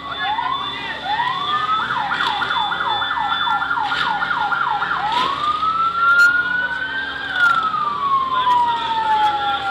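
A siren winding slowly up and down, then switching to a fast warble for about three seconds, then back to a slow rise and a long falling wail.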